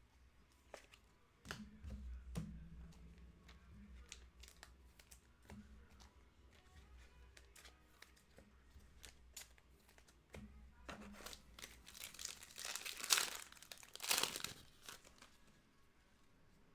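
Trading cards being handled, with scattered small clicks and taps, then a foil card-pack wrapper torn open and crinkled, loudest near the end.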